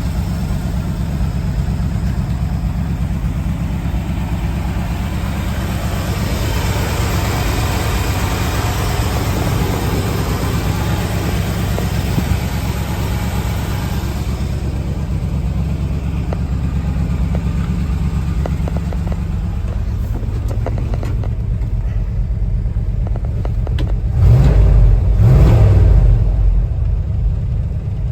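1978 crew cab pickup truck's engine running at idle, warming up after a cold start, with two short revs near the end.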